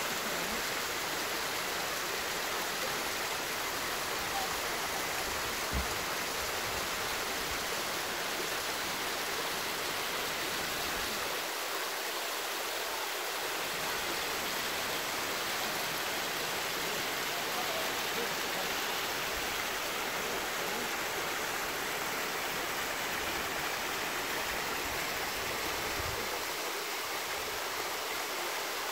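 Small waterfall cascading down mossy rock slabs: a steady rush of running water.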